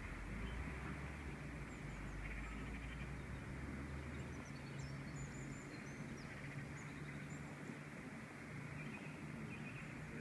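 Steady outdoor background hiss with a low hum that fades out about four seconds in, and faint, high, short chirps of small birds in the middle.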